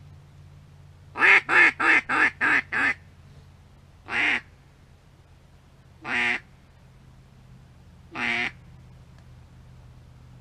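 Loud hen-mallard-style quacking: a quick descending run of six quacks, then three single quacks spaced about two seconds apart.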